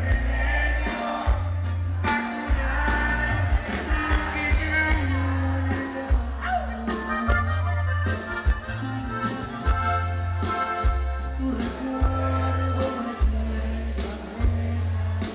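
Norteño band playing live and amplified through a stage sound system: button accordion, guitar, electric bass and drum kit, with the bass stepping between notes in a steady beat.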